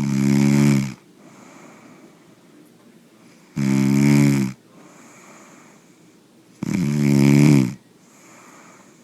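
A man snoring: three loud, pitched snores, each about a second long and about three seconds apart, with quieter breaths between them.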